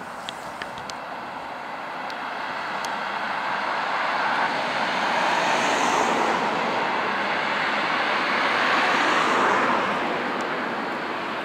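A passing vehicle's noise, a steady rush that swells over several seconds, is loudest in the middle and fades near the end.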